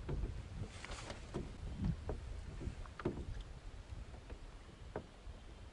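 Small waves lapping against the hull of a small portable boat, with short irregular knocks and splashes over a low steady rumble.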